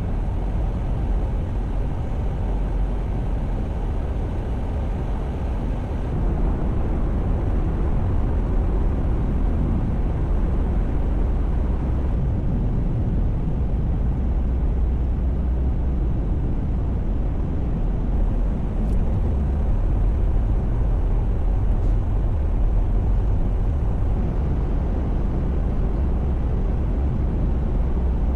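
Steady road and engine noise of a car driving, an even low rumble with no separate events, a little louder from about six seconds in.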